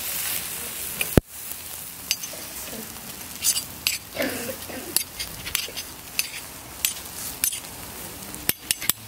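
A knife blade clicking and scraping against steel kebab skewers as roasted meat chunks are pushed off them, in sharp irregular clicks, the loudest about a second in. Underneath, meat sizzles steadily over the charcoal grill.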